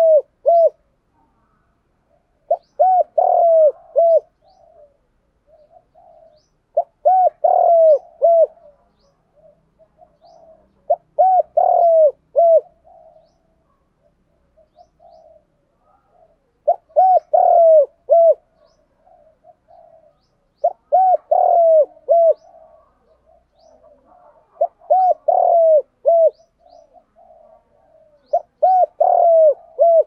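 Spotted dove cooing: a phrase of several short, low, arched coos, repeated about every four seconds.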